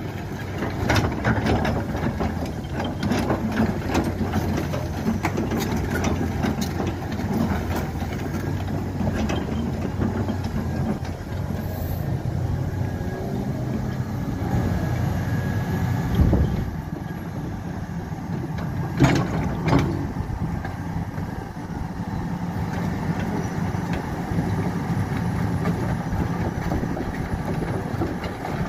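Hyundai Robex 300LC crawler excavator's diesel engine running steadily. A few sharp knocks cut across it, the loudest about two-thirds of the way through.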